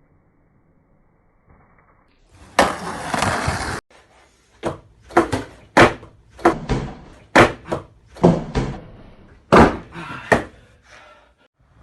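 A second-long burst of loud noise, then about a dozen sharp knocks and bangs at irregular intervals.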